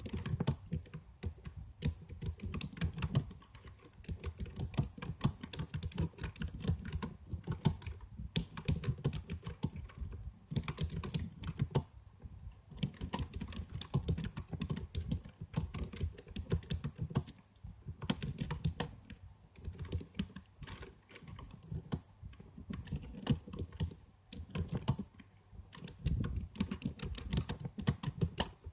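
Computer keyboard being typed on: rapid runs of key clicks with short pauses between bursts.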